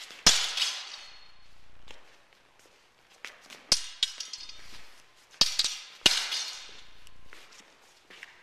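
Steel arming swords clashing blade on blade in sparring: several sharp metallic clinks, each ringing briefly, the loudest about a third of a second in and more in a cluster between about three and a half and six seconds in.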